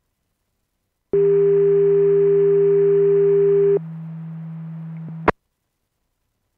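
Fire-radio transmission on a scanner: a steady single tone for about two and a half seconds over a low hum and light hiss, then a second and a half of open channel with hiss, cut off by a sharp squelch-tail click.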